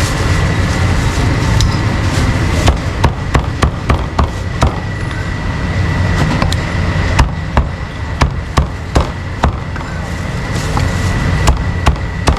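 Cleaver chopping meat on a chopping board: a run of sharp, uneven strikes starting about a fifth of the way in, over a steady hum of street traffic.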